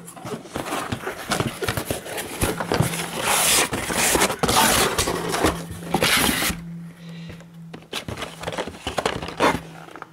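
Cardboard box and its packaging being opened and rummaged through by hand: dense rustling, scraping and crackling of cardboard and wrapping, in a long bout, then a shorter one near the end.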